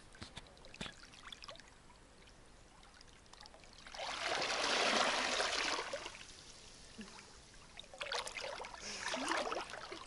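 A person plunging into a river, a splashing rush about four seconds in that lasts a couple of seconds. Then water sloshes from swimming strokes near the end.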